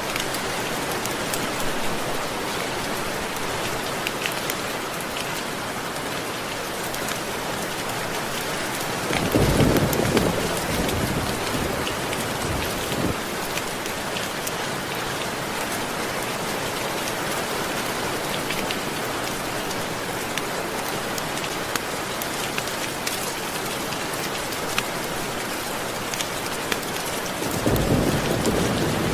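Steady rainfall with thunder rumbling twice, once about a third of the way in and again near the end.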